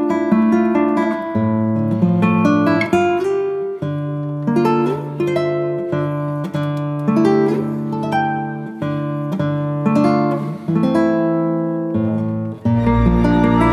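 Background music: a plucked acoustic guitar playing a melody of separate notes, which switches suddenly near the end to a fuller, sustained new-age piece with a deep low drone.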